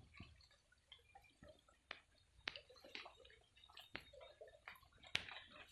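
Faint, sparse water drips: single sharp drips about a second apart over quiet stream water.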